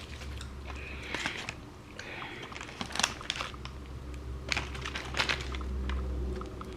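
Close-up eating sounds: scattered wet mouth clicks of chewing and crinkling of a paper food wrapper, over a low steady hum.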